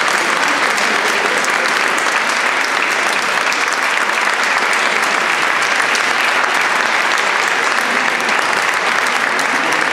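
Audience applauding steadily: dense hand-clapping that holds an even level throughout.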